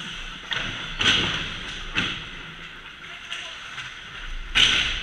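Ice hockey play around the net: skates scraping on the ice and a series of sharp knocks and clacks from sticks and the puck, the loudest about a second in and near the end.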